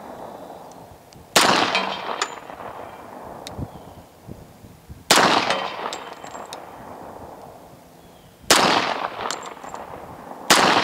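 Four .45 ACP shots from a Kimber 1911 pistol, fired a few seconds apart, the last two closer together, each with a short echoing tail. Faint metallic ringing of steel targets being hit follows some of the shots.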